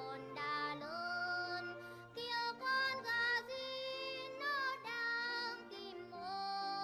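Children's song: a high, child-like voice singing with vibrato over an instrumental backing track.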